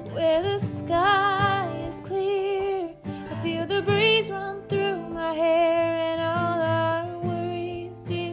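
Music: a woman singing a slow melody in long held notes that waver, with guitar accompaniment.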